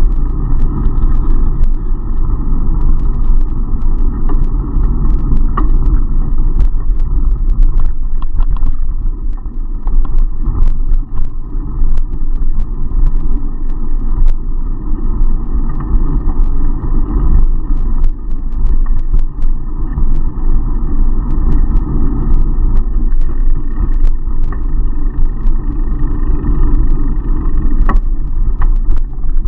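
Steady wind rumble and road noise on the microphone of a bicycle-mounted action camera while riding, with frequent small clicks and rattles from the bike going over the road surface.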